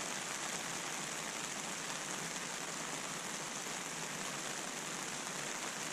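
Steady rain falling on open ground and vegetation, an even hiss with no breaks.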